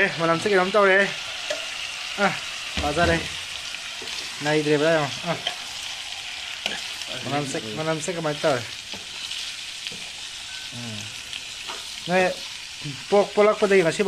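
Pieces of quail meat sizzling in a frying pan as they are stir-fried, turned with a metal spoon.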